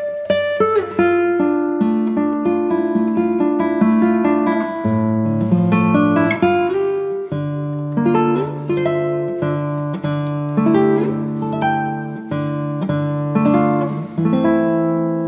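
Background music: acoustic guitar plucked and strummed, with a steady melody.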